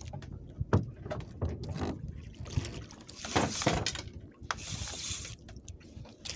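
Water splashing and trickling, mixed with small scattered clicks and knocks, with two longer hissing splashes around the middle.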